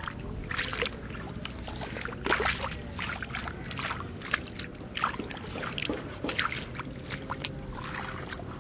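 Hands splashing and sloshing through shallow muddy water among grass while groping for fish, an irregular string of short splashes, busiest in the middle. A faint steady tone runs underneath.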